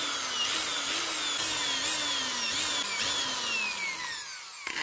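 Small electric power tool running with its motor under changing load: the pitch jumps up and then sags about every half second, then falls in one long glide before the tool cuts off near the end.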